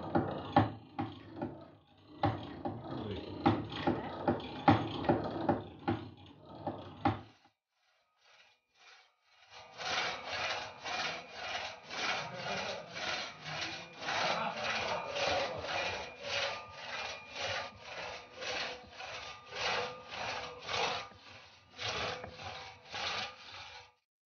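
Two-man crosscut saw cutting through a fresh log, rasping back and forth in even strokes about twice a second. The first seven seconds hold a lower, more irregular rubbing with knocks, then a short pause before the steady sawing starts.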